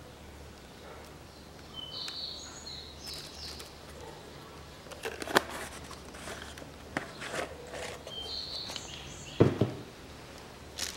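A few knocks and clunks as the oil bottle and oil filter are handled and set down on a concrete table, the loudest near the end, with small birds chirping in the background.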